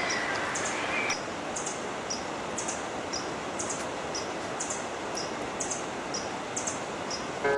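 Steady rush of river water with a high, short bird chirp repeating about once a second. Music fades out about a second in.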